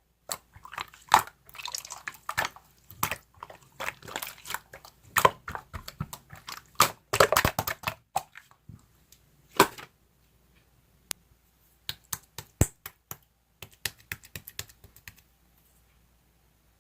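Slime being squeezed and poked by hand: a run of sticky wet clicks and small pops, dense at first, then thinning out to a few scattered clicks after about ten seconds and stopping near the end.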